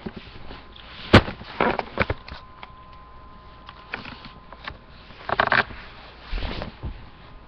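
Handling noise from the camera being carried and set down: a series of sharp knocks and bumps, the loudest about a second in, with a quick cluster of knocks a little past the middle.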